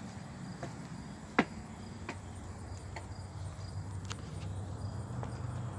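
Faint, evenly repeating chirps of insects over a low steady outdoor hum, broken by a few light clicks of the phone being handled. The sharpest click comes about a second and a half in.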